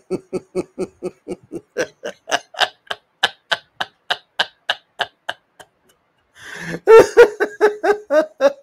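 A person laughing: a long run of short rhythmic laugh pulses, then after a brief pause a louder, fuller laugh about six and a half seconds in.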